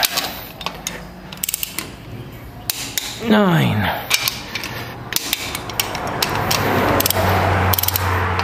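Ratchet-head torque wrench clicking in runs as it is swung back and forth on a Toyota 5L diesel's cylinder head bolts, taking them one by one to 58 lb-ft. A short falling squeak comes about three seconds in.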